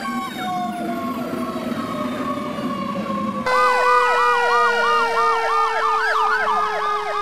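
Fire engine sirens. First a long wail slowly falling in pitch, then, about three and a half seconds in and louder, a fast up-and-down yelp cycling two to three times a second over a steady tone that slowly drops.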